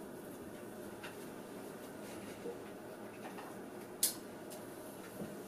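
Quiet room hiss with small handling sounds from something held in the hands: a few light taps, then one sharper click about four seconds in.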